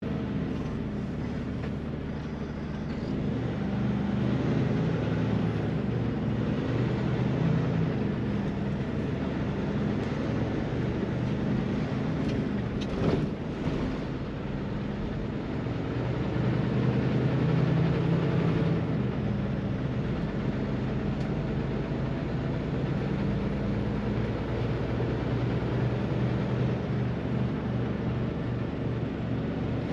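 Kenworth truck's diesel engine running under way, heard inside the cab with road noise. It grows louder for a few seconds about halfway through, and there is one sharp click a little before that.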